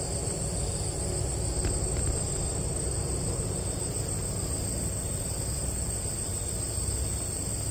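Steady, unbroken high-pitched trilling of insects, over a low rumble.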